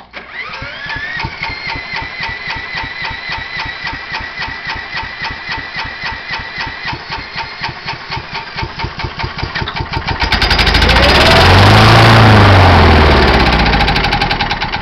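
Electric drill spinning the 1996 John Deere JX85 mower's Kawasaki FC150V single-cylinder engine: the drill whines, rising then steady, over the engine's regular cranking pulses. About ten seconds in, the engine catches on carb cleaner and runs loud for a few seconds before dying away, the sign of a carburetor the owner thinks must be plugged.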